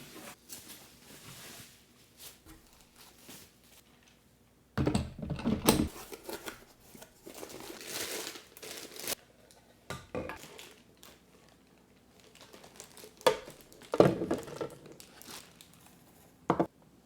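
Packaging being handled during an unboxing: plastic and paper crinkling and rustling in irregular bursts, with a few sharp knocks, the loudest about five seconds in and again near fourteen seconds.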